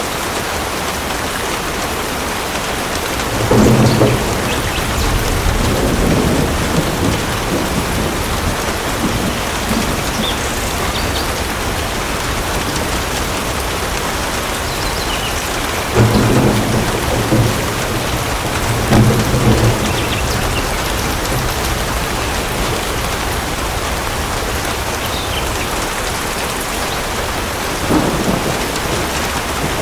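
Steady rain falling, with thunder rumbling three times: a long rumble a few seconds in, another about halfway through, and a short one near the end.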